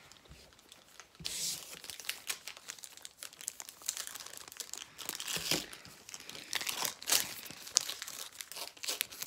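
Trading card pack wrapper being torn open and crinkled, in irregular crackling rustles that start about a second in.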